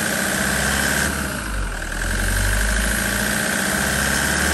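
Turbodiesel engine idling with a steady high-pitched whistle from its turbocharger over the low engine rumble. A turbo that whistles even at low revs is a sign that it has a problem.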